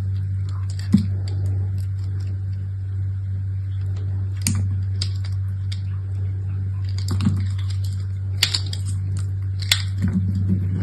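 Soap being unpacked: its packaging crinkling and clicking in short, scattered bursts, over a steady low hum.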